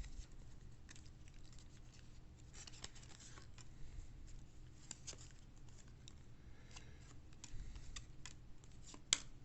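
Baseball trading cards being handled and flipped through by hand: faint scratchy rustles and small clicks as card edges slide and snap against each other, with two sharper clicks near the end.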